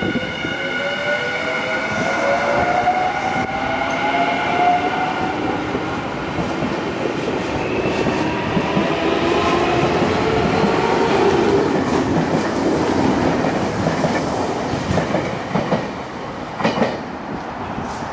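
Nankai 8000-series and 1000-series electric train pulling out and accelerating past: the traction motors whine, rising in pitch over the first several seconds, then give way to wheel rumble as the cars go by, with a few rail-joint clacks near the end.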